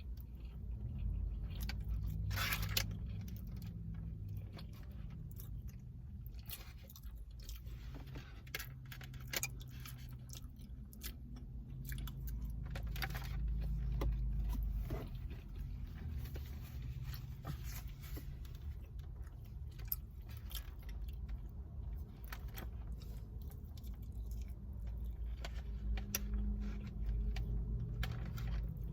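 A person chewing and eating from a takeout bowl of chicken, rice and beans, with scattered clicks and rattles of a utensil and container, over a steady low hum.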